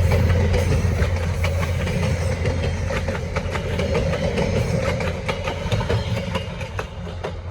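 Via Rail passenger train rolling past, its wheels clicking over the rail joints above a steady low rumble that slowly fades.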